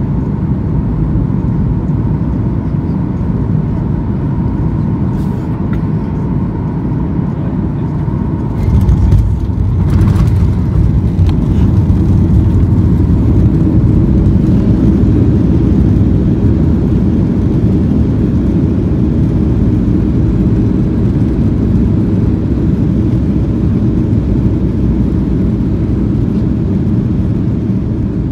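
Boeing 737-900 touching down, heard from the cabin over the wing: steady engine and airflow noise with a thin whine. About nine seconds in come the touchdown thumps, then a louder, deeper rumble as the jet rolls out on the runway with spoilers up, easing a little toward the end.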